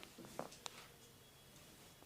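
Hands working on a person's body in a massage: three short, soft taps within about the first second.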